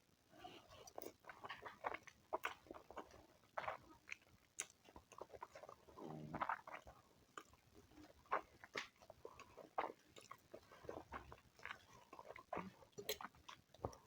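A person chewing and biting food close to the microphone, with irregular short clicks throughout.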